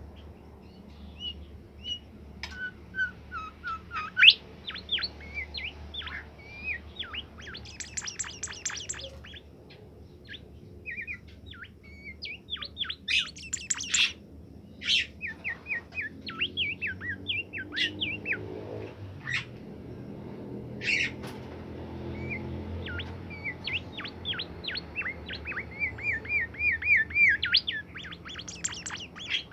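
Bimoli bird singing continuously, a fast run of varied chirps and short whistled notes broken by quick rattling trills.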